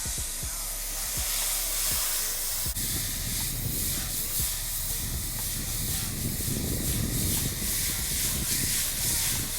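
Water spraying hard onto an HVAC condenser coil during a coil wash, a steady hiss, with a low rumble joining it about three seconds in.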